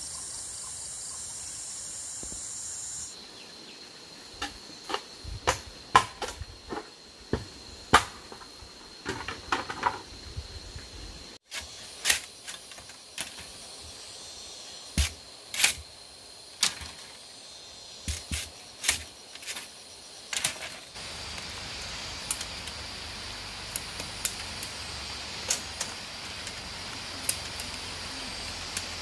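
Scattered sharp knocks and taps from hand work, irregularly spaced, over a steady high-pitched insect drone. For the first few seconds a louder high hiss sits on top, then stops abruptly.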